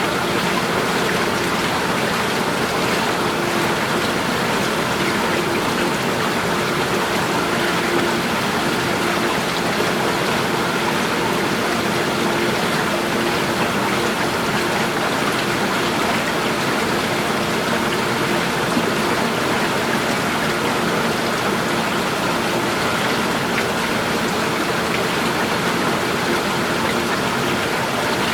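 Steady, unbroken rush of flowing water, a garden stream or cascade running continuously.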